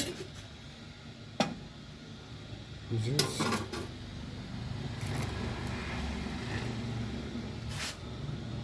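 A few sharp metallic clinks and knocks of espresso-machine parts being handled and fitted back together. A low steady hum sets in about five seconds in.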